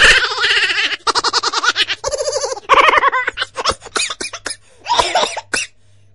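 High-pitched laughter in several bursts, loudest in the first three seconds, then breaking into short chuckles that stop a little before the end.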